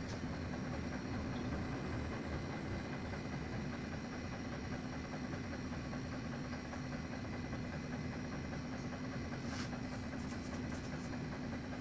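Steady low hum of workshop machinery, even and unchanging, with a few faint light clicks near the end.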